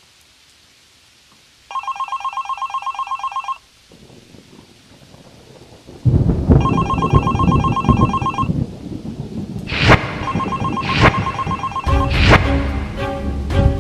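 A telephone rings in rapid trilling bursts, about ten pulses a second, each ring lasting about two seconds. A loud low rumbling noise comes in with the second ring. From about ten seconds in, music with sharp percussive hits joins in over it.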